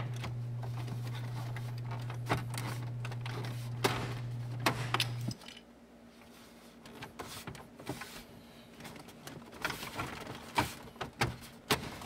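Plastic dash trim panel clips being pressed and snapped into place by hand: scattered clicks and knocks. A steady low hum runs under the first five seconds and then stops abruptly.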